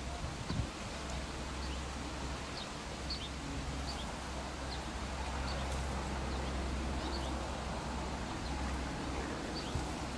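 Rural outdoor ambience: a steady low wind rumble on the microphone with scattered short, high bird chirps, and a couple of soft thuds about half a second in.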